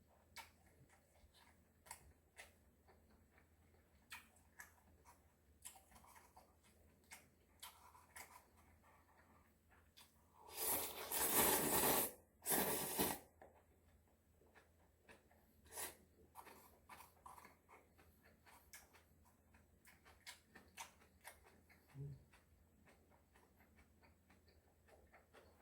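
Close-miked eating sounds: scattered soft clicks and chewing noises. About halfway through comes a loud noisy burst of about two and a half seconds, in two parts.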